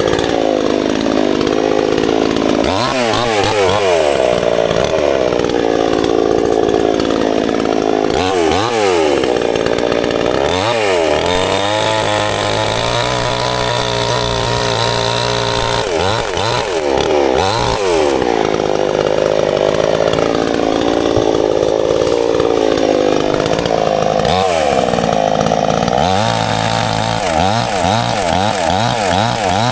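Chainsaw running while cutting branches and sticks on the ground. Its pitch dips and rises again several times as the chain bites into the wood and frees itself.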